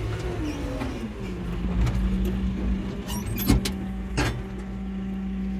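JCB telehandler's diesel engine heard from inside the cab: the revs drop over the first second and settle into a steady idle. A few sharp clicks or knocks come a little past halfway.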